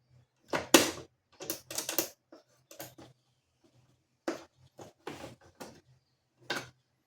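A string of irregular short clacks and knocks, about a dozen spread unevenly, over a faint steady low hum.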